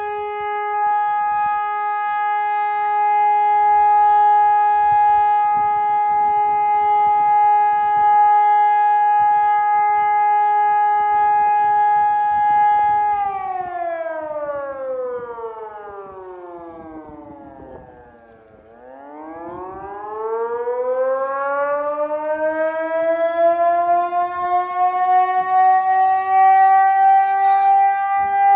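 Fire station alarm siren calling out volunteer firefighters: a steady wailing tone that winds down in pitch about thirteen seconds in, bottoms out and fades around eighteen seconds, then winds back up to full pitch.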